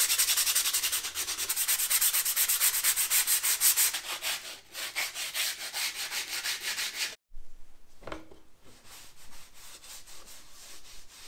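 Sandpaper rubbed by hand over a thin fibreboard panel in fast, even back-and-forth strokes; the paper is 120 grit. About seven seconds in it cuts off suddenly, and quieter, irregular rubbing follows as a cloth wipes off the sanding dust.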